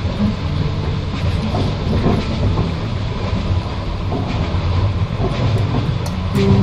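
Passenger train carriage running along the rails: a steady low rumble of wheels on track, with a few faint clicks near the end.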